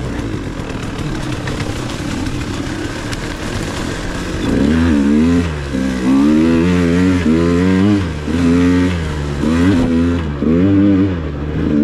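KTM 150 XC-W two-stroke dirt bike engine running at low revs for the first few seconds, then revved up and down repeatedly, about six times, from about four and a half seconds in.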